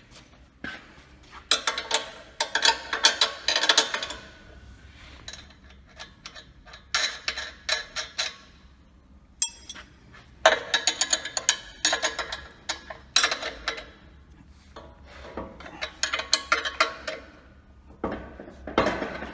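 Ratcheting spanner clicking as a nut is tightened on a steel sawmill frame bracket, in about six bursts of rapid clicks with short pauses between them.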